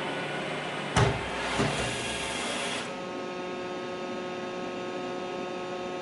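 iRobot Roomba i3 robot vacuum running, a steady whining hum with a hiss over it. A sharp knock comes about a second in and a lighter one just after; a little before three seconds in the hiss thins out while the motor whine carries on.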